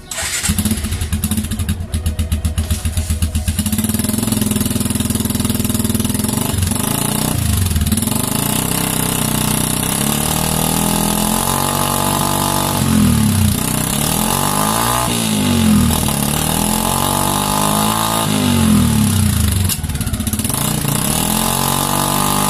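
Suzuki Gixxer 150 single-cylinder engine running through an aftermarket Akrapovic slip-on exhaust, its rear wheel spinning in gear on the stand. It is revved up and back down several times from about halfway through.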